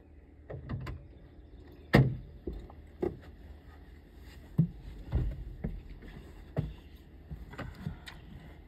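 A dozen or so irregular knocks and thumps at uneven spacing, the loudest about two seconds in, over a low steady background.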